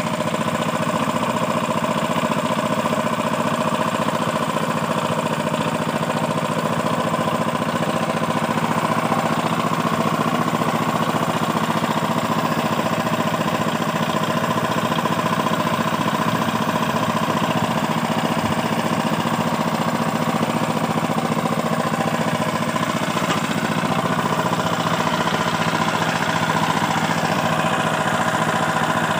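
Small stationary engine running steadily, driving a brick-making machine.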